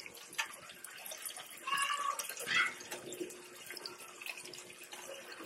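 Chopped steak patties and onions sizzling faintly in a hot pan as the browned patties are laid back in, with scattered small crackles and a couple of brief squeaks near the middle.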